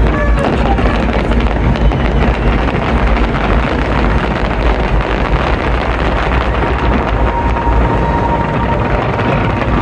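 Wind buffeting the microphone over the steady hubbub of a large outdoor crowd, with no clear bangs.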